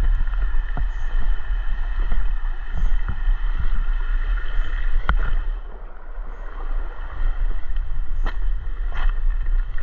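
A shallow rocky creek running, under a heavy low rumble of wind and handling noise on a moving microphone. Scattered short knocks, likely footsteps, come through it, and the level dips briefly about six seconds in.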